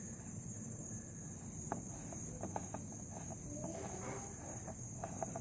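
Faint steady high-pitched trill of crickets, with scattered light clicks and taps from hand work on the motorcycle's oil filter cover.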